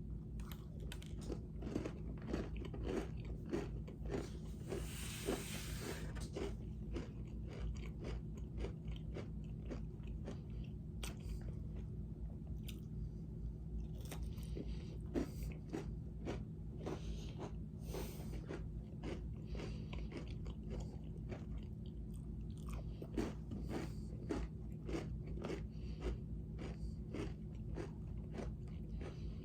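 Close-up chewing of a crunchy granola square: a steady run of small crisp crunches as the bar is bitten and chewed.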